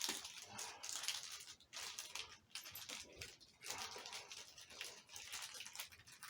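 Irregular rustling and crinkling of plastic packaging and parts being handled, in short scratchy strokes throughout.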